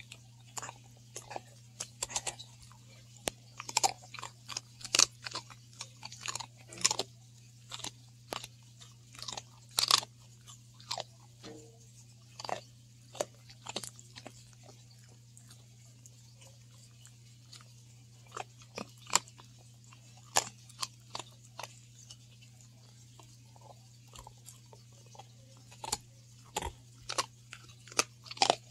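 A dog crunching and chewing a hard, frosted dog cookie: sharp crunches come in quick runs for the first half, pause for a few seconds midway, and return in scattered bites near the end.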